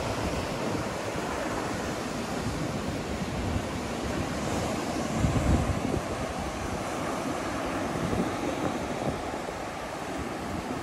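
Ocean surf breaking and washing over a rock shelf, with wind blowing across the microphone. There is a louder low rumble about halfway through.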